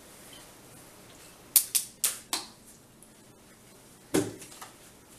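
Four quick light clicks about a second and a half in, then a single duller knock near the end: small tablet parts and tools being handled and set down on a workbench.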